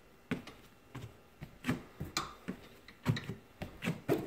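Irregular light knocks and clicks, roughly two a second, with a few duller thuds among them, as from feet and hands on a step platform and bar during step-up exercises.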